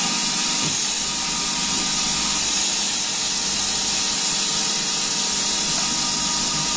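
Metal lathe running, with the steady hiss of a Noga mist coolant spray blowing onto the work and a faint steady machine hum underneath.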